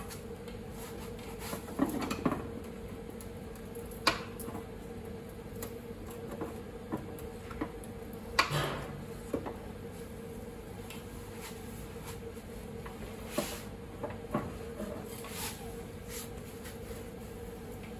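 Scattered metallic clicks and knocks at uneven intervals from a hand-held sheet-metal gripping tool (tsukami) biting and levering the steel lip of a car's rear fender, bending a rolled fender lip back out. A steady hum runs underneath.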